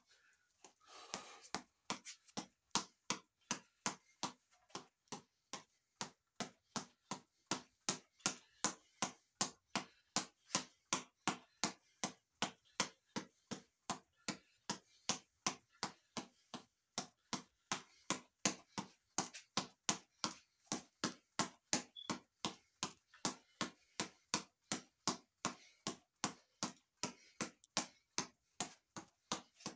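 Fists repeatedly smacking a fight reflex ball, a small ball on an elastic cord tied to a headband, in a steady rhythm of about two to three sharp hits a second that starts about a second in.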